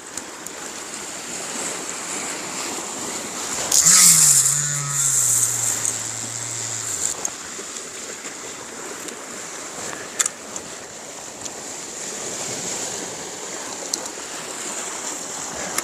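Sea waves washing against shore rocks, a steady wash with a louder surge about four seconds in. Under the surge a low tone falls in pitch for about three seconds.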